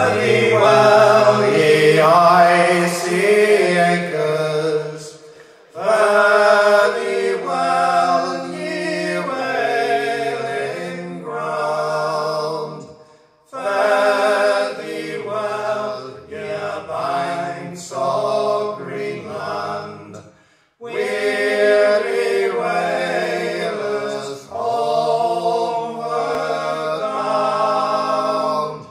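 Three male voices singing a folk song together in harmony, in long sung phrases with short breaks for breath between them.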